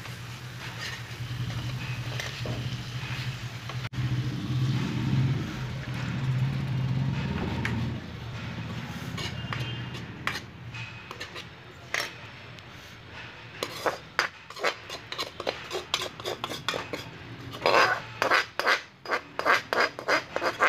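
A steel spoon stirring a thick curry masala in a metal pan, scraping over the pan's bottom, with a low steady hum under it for the first several seconds. In the second half the spoon clinks and scrapes against the pan in quick strokes, loudest near the end.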